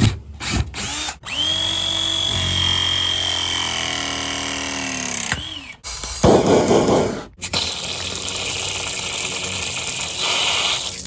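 Handheld electric power tool motor starting up and running with a steady whine, then winding down about five seconds in, followed by a short harsh burst and a second longer stretch of running with a hissing, rattling sound.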